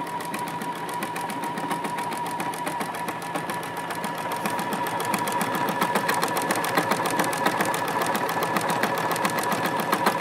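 Juki F-600 computerised sewing machine stitching a decorative pattern stitch: a steady, rapid run of needle strokes over a constant motor whine, getting a little louder about halfway through.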